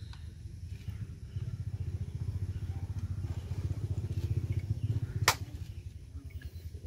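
A small engine running with a low, quickly pulsing rumble, and one sharp crack about five seconds in.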